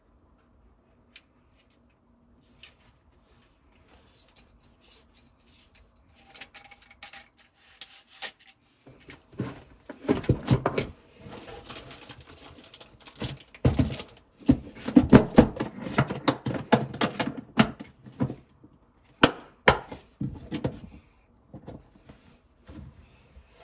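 Hard objects and packaging handled by hand: a few isolated clicks at first, then from about a third of the way in a busy run of knocks, clatter and rubbing that dies back to scattered taps near the end.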